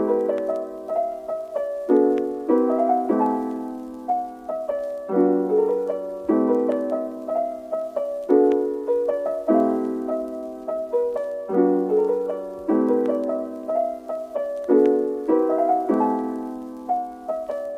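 Solo piano playing a gentle, repeating pattern of chords, each struck and left to ring.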